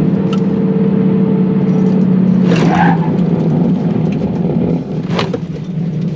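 Whipple-supercharged Ford F-150's V8 engine running steadily with road noise while the truck drives, the sound dropping a little about five seconds in.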